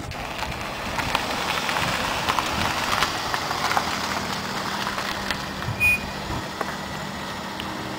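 Steady outdoor noise of car traffic, with a low engine hum setting in about six seconds in.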